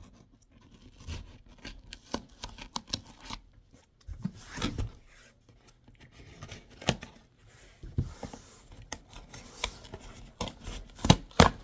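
A cardboard shipping box being opened by hand: packing tape and cardboard cut and torn, with scattered clicks, scrapes and knocks from handling the box.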